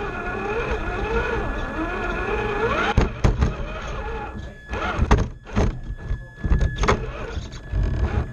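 Radio-controlled rock crawler's electric motor and gears whining, the pitch wavering up and down with the throttle and climbing just before three seconds in. After that come a series of sharp knocks and clatter as the truck works over the course obstacles.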